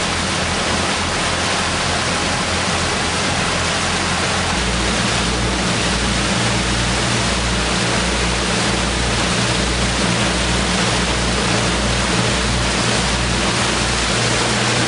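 Steady rush of wind and churning water from a boat under way at trolling speed, with the low drone of the boat's engine. The engine drone grows louder about four and a half seconds in, as the boat speeds up.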